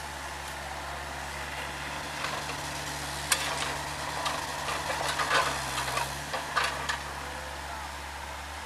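Komatsu PC40-7 mini excavator's diesel engine running steadily. Irregular crunching and scraping in crushed-stone gravel comes from about two to seven seconds in.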